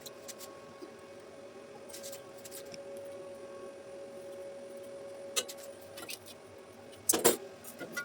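Faint steady hum with a few light clicks and clinks, the loudest a quick pair about seven seconds in.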